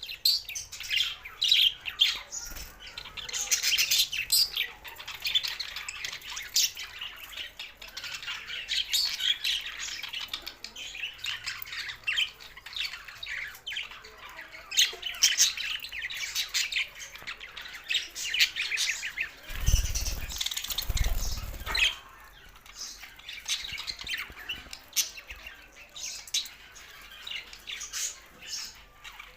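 A group of budgerigars chirping, chattering and squawking continuously. About two-thirds of the way in, a low rumbling noise joins them for about two seconds.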